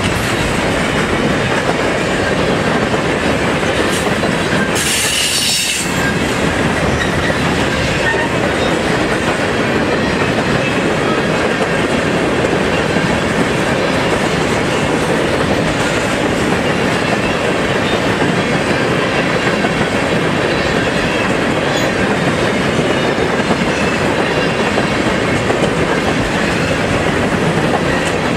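Freight train cars, tank cars and boxcars, rolling past close by with a steady, loud clatter of steel wheels on rail. A brief burst of hiss comes about five seconds in.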